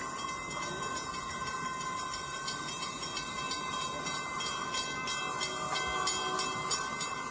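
LEGO train running on plastic track: a steady motor whine with a few evenly spaced clicks a second from the wheels over the track joints.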